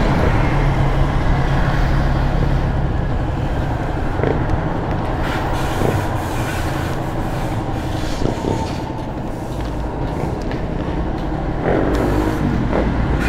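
Motor vehicle engine running steadily as a low hum. It eases off a little past the middle and picks up again near the end.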